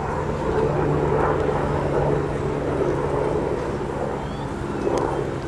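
A steady engine drone with a low hum that drops slightly in pitch about halfway through.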